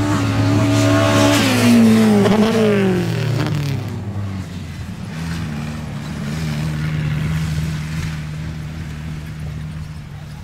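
Off-road 4x4 engines at full throttle in a sand drag race. The pitch falls steeply as they pass, about one to four seconds in, then a steadier, quieter engine drone carries on.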